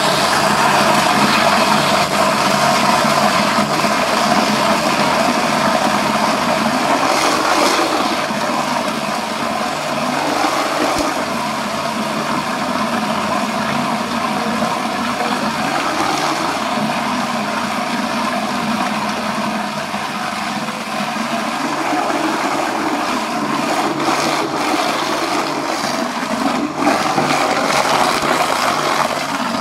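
Electric pork-paste grinder, a steel-drum bowl cutter, running steadily at speed, its blades churning raw pork into a smooth paste.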